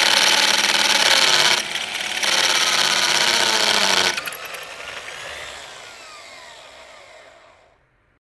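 Electric drill boring a pilot hole into brickwork, running loud and steady with a brief easing about two seconds in. It stops about four seconds in and winds down with a falling whine, fading out over the next few seconds.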